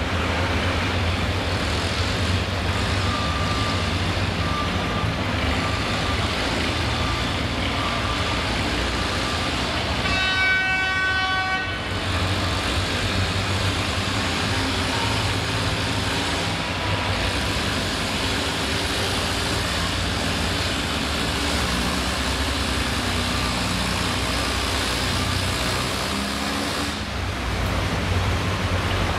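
A Case 700 pulling tractor's engine runs steadily at the sled. About ten seconds in, a horn sounds once for about a second and a half.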